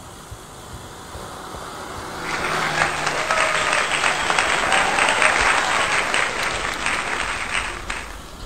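Applause from many hands, coming in suddenly about two seconds in and cutting off abruptly near the end, over light wind and road noise from riding.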